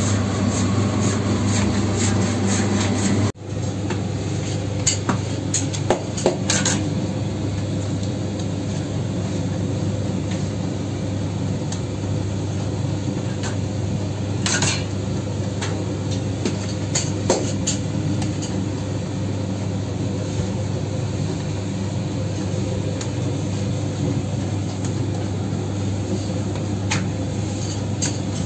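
Steady hum of a bakery's electric dough machines running, with a short dropout about three seconds in. Now and then a light clink or knock sounds over it.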